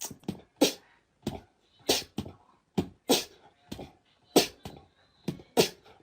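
A percussive music beat: sharp drum-like hits recurring every half-second or so in a loose rhythm.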